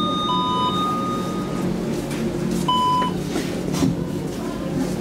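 KONE MiniSpace traction elevator's signal beeping while the car is in use: short beeps about two and a half seconds apart, with a longer steady tone held through the first second and a half. A steady low hum runs underneath.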